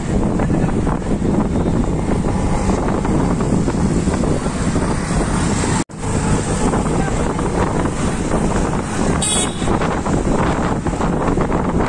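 Wind buffeting the microphone over engine and road noise, riding in an open-sided auto-rickshaw through city traffic. The sound cuts out for an instant about six seconds in.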